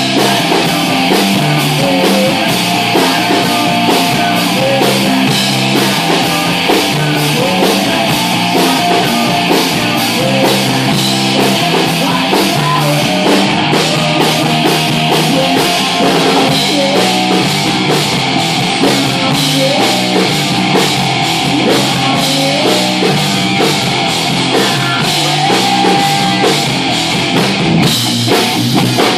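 Live rock band playing: amplified electric guitars over a drum kit beating out a steady, fast rhythm.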